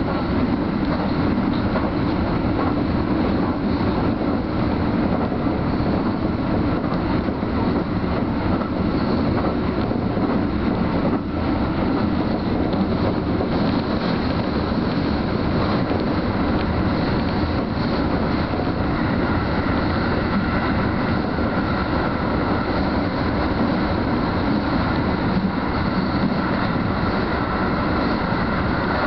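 Keio Line electric commuter train running at a steady speed: continuous wheel-on-rail and running noise heard from inside the front car, partly in a tunnel.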